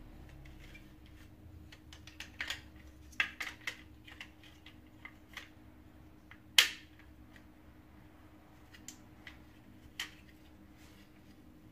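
Plastic parts of a Philips TriActive Max vacuum floor nozzle being handled and fitted together by hand: scattered light clicks and knocks, busiest a few seconds in, with one louder sharp click about six and a half seconds in.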